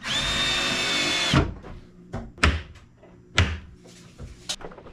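Power drill running at a steady speed for about a second and a half, driving a screw into cabinet wood, then stopping. It is followed by three sharp knocks about a second apart.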